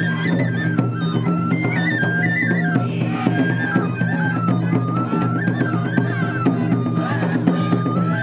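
Japanese festival lion-dance music: a transverse bamboo flute plays a melody that steps up and down, over frequent percussion strikes and a steady low hum.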